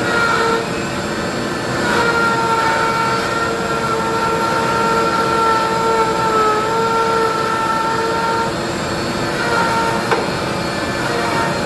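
Router in a router table running at speed with a steady high whine over the noise of the cut. The whine dips slightly in pitch about six and a half seconds in, and grows weaker and uneven near the end, with one sharp click about ten seconds in.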